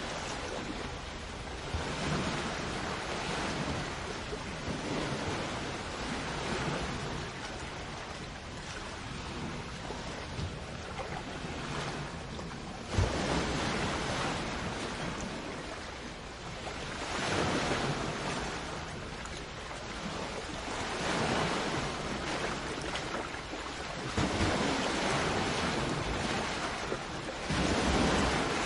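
Sea waves washing onto the shore in a steady hiss that swells with each wave every few seconds. Wind rumbles on the microphone, and there is one brief sharp knock about thirteen seconds in.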